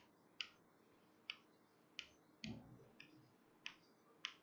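Chalk clicking and tapping against a blackboard while letters are written: about seven short, sharp ticks at uneven intervals, with a brief soft low sound about two and a half seconds in.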